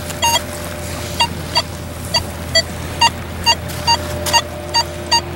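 Nokta Makro Legend metal detector beeping as its coil is swept back and forth, about two short pitched beeps a second, often in pairs, over a steady faint threshold hum.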